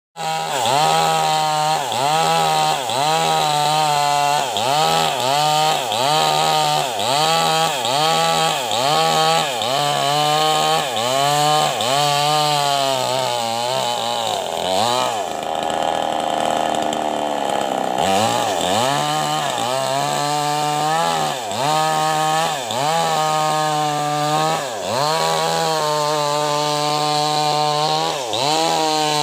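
Two-stroke petrol chainsaw ripping a jackfruit log lengthwise along the grain. The engine's pitch sags and recovers in a steady rhythm, about three times every two seconds, as the chain bites into the wood. About halfway through it runs steady at a higher pitch for a few seconds, then the sagging rhythm returns.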